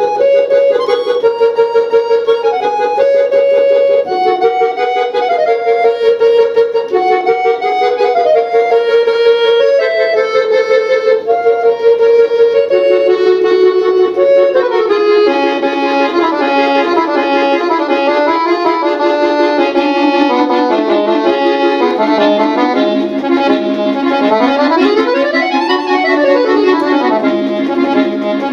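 Solo piano accordion playing a piece: a slow melody of held notes for about the first dozen seconds, then quicker runs sweeping up and down over fuller chords.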